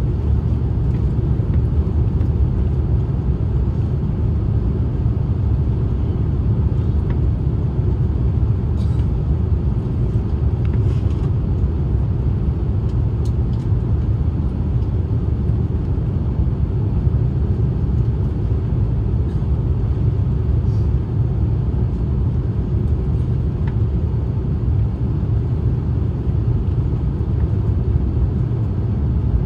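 Steady low rumble of an Airbus A350-900's Rolls-Royce Trent XWB engines and the airflow over the airframe, heard inside the cabin on final approach, with a few faint ticks around the middle.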